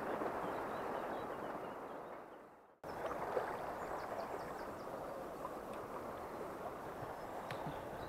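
Steady rush of river water flowing over a shallow riffle, fading out about three seconds in, then steady water noise again with a few faint bird chirps and one light click near the end.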